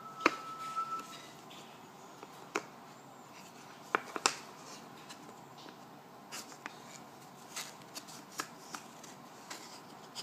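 Cardboard jigsaw puzzle pieces being handled: scattered light clicks and taps as pieces are picked up, set down and pressed into place.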